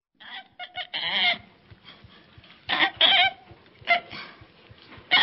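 Orangutan calling: a string of short, high, pitched calls in irregular bursts, with the loudest about a second in, around three seconds in, and near the end.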